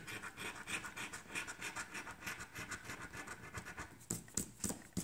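Scratch-off lottery ticket being scratched: rapid, repeated short scraping strokes across the ticket's coating, with a few louder strokes about four seconds in.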